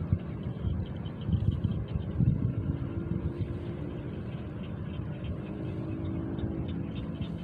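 Steady low rumble of wind on the microphone, with a faint engine hum coming in about a third of the way through and fading near the end.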